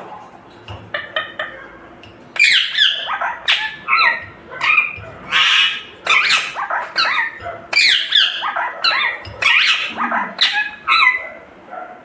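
Rose-ringed parakeet giving a rapid run of short, loud, high calls, starting about two seconds in and stopping shortly before the end.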